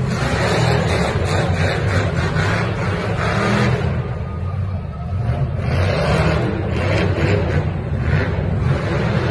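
Monster truck engine running loud as the truck drives through the arena dirt, rising and easing off, with a dip about halfway through.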